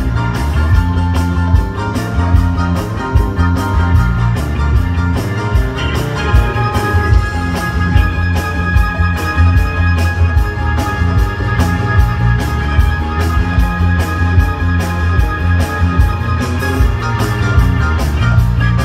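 Live rock band playing loudly: piano, electric guitars and drum kit, with a steady beat of about three strikes a second and long held notes coming in about six seconds in.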